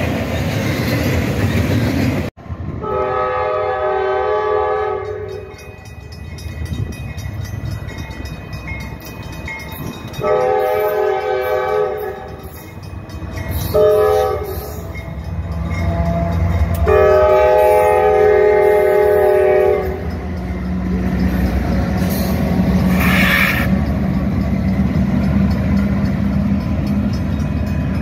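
A freight train's wagons rumble past until a cut about two seconds in. Then a Norfolk Southern diesel freight locomotive's multi-chime air horn sounds the grade-crossing signal: two long blasts, one short and one final long blast. After the horn, the locomotives' diesel engines are heard running as they pass.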